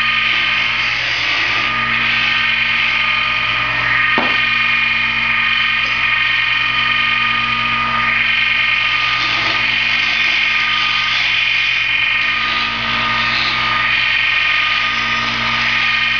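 Small wood lathe running at a steady speed with a constant whine, turning a wooden popper lure body while it is sanded by hand, which adds a steady hiss. A single light knock about four seconds in.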